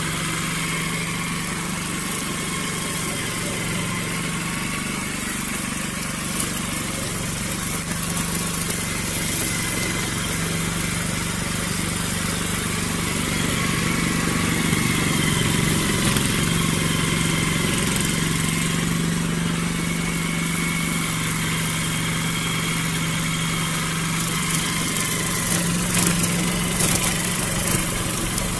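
Small petrol engine of a grass cutter running steadily at a constant speed, with a few brief clicks near the end.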